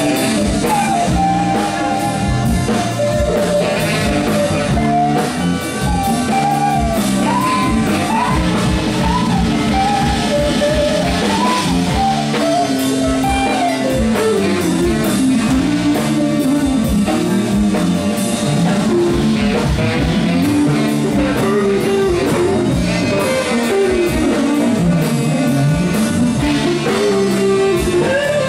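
Live funk band playing: electric guitar and drum kit over a steady groove, with a lead melody line that slides up and down in pitch.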